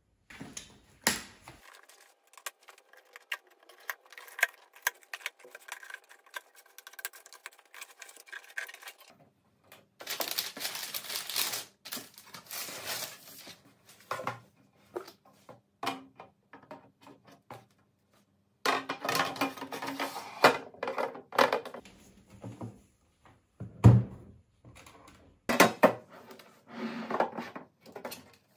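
Cardboard box and paper packing being handled and opened: irregular rustling, scraping and light knocks, with longer rustling stretches about 10 and 19 seconds in and a single heavy thud about 24 seconds in.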